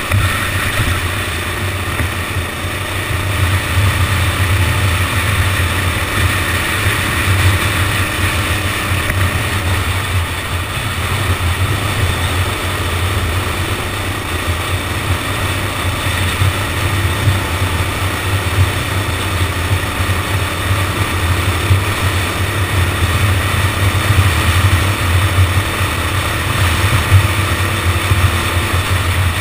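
Go-kart engine running continuously as the kart laps the track, heard from an onboard camera, with a steady rushing noise alongside it.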